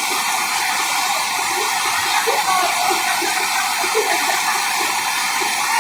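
Waterfall rushing: a steady, unbroken rush of falling water.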